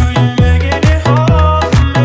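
Electronic dance music with a heavy bass beat, about two to three bass hits a second, each dropping in pitch, under synth tones.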